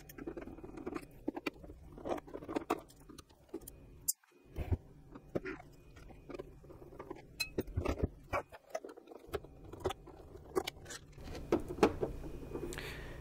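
Handling clatter of a Singer Simple sewing machine's plastic housing being turned over and set down on a workbench: scattered clicks and knocks, the loudest a little after four seconds in. Near the end a screwdriver clicks against the screws of its cover.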